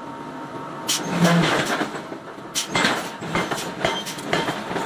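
Irregular metal knocks and clanks from hot iron being forged into bar, coming at uneven intervals: a cluster about a second in, then scattered single hits.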